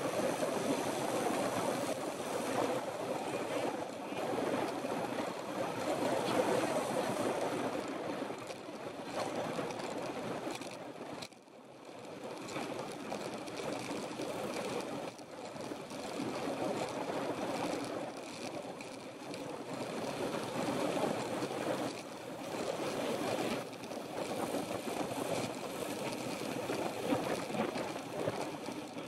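Steady rush of wind buffeting the microphone as a road bike rides at speed, mixed with tyre noise on asphalt; it eases briefly about eleven seconds in.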